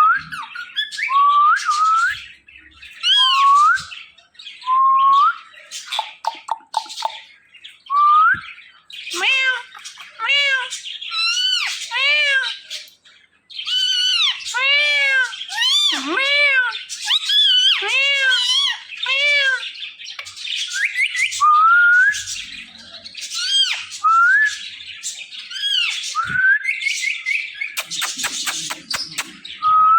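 Ringneck parrot calling: a long series of short, loud squawks and chirps, many of them arching or sliding up in pitch, with a burst of rapid chatter near the end.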